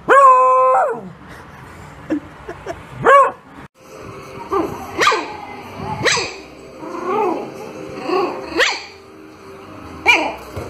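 Beagle barking: one loud, long, drawn-out bark at the start and a shorter one about three seconds in. Then a small puppy gives a string of about eight short, high-pitched yappy barks.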